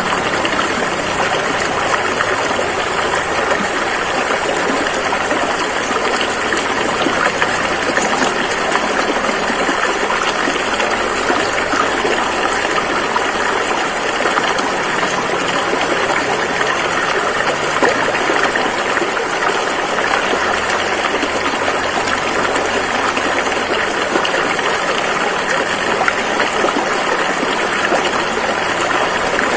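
Rushing river water flowing over rapids, a steady loud rush.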